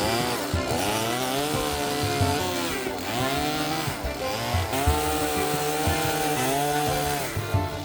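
Two-stroke chainsaw running hard and cutting into a wooden log; the engine's pitch dips again and again as the chain bogs in the cut, then climbs back as it frees.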